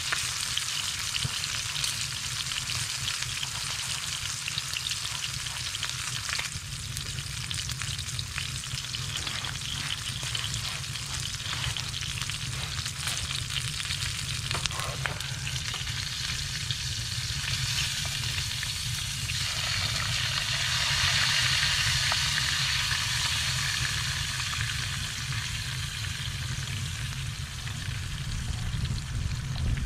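Deer steak sizzling in hot oil in a frying pan on a wood stove: a steady crackling sizzle that grows louder for several seconds about two-thirds of the way through, over a steady low rumble.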